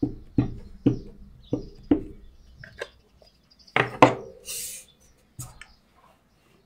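Ink pad tapped five times onto a clear stamp mounted on an acrylic block, about two taps a second, inking it. A couple of louder knocks follow as the pad is set down and the block is placed on the card, with a brief paper rustle and one more knock.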